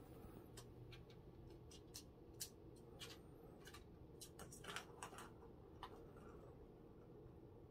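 Light, irregular plastic clicks and rattles from a kitten batting at a circular ball-track cat toy, the balls knocking around inside the track, with a quick flurry about four to five seconds in. Otherwise near silence.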